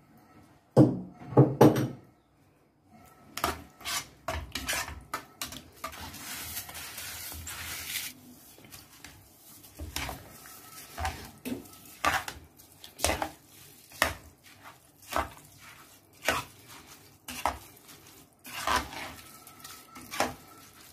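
A metal slotted spoon clanks and scrapes against a metal cooking pot while stirring rice into tomato sauce for mahshi stuffing. A few loud knocks come about a second in, and a short rustling hiss follows about six seconds in as the rice goes in. After that the spoon knocks against the pot about once a second.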